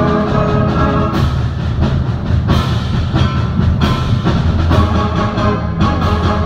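Concert band playing loudly: held brass and woodwind chords give way after about a second to a series of heavy accented full-band hits with timpani and drums over sustained low brass.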